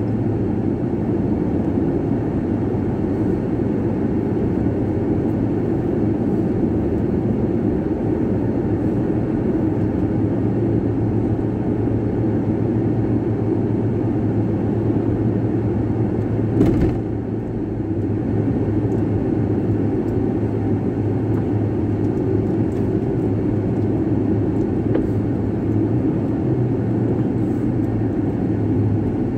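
Steady engine and tyre-on-road noise inside a pickup truck's cab while driving, with one brief thump about halfway through.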